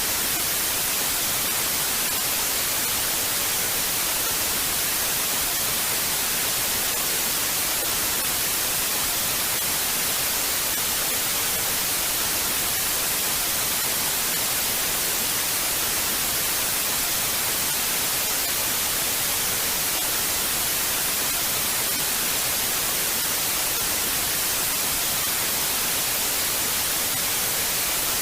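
Television static: a steady, unbroken hiss of white noise, strongest in the high frequencies, like an analog TV tuned to no signal.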